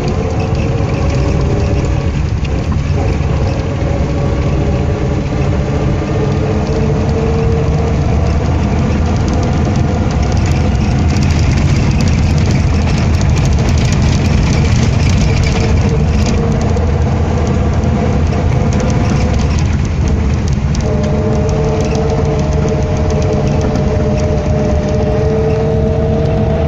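Cabin sound of a 1957 Moskvich 402 driving on a gravel road: its side-valve four-cylinder engine is running under way with a whine that climbs slowly in pitch, drops about twenty seconds in and climbs again, over a steady low rumble of tyres on gravel.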